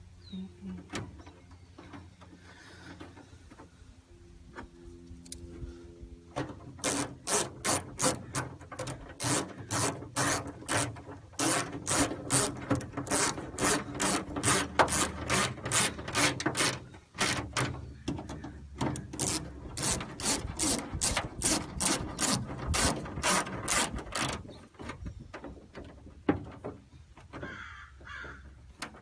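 Hand socket ratchet clicking in quick, steady strokes, about two to three clicks a second, as nuts are run down. The clicking starts about six seconds in, breaks off briefly midway and dies away near the end.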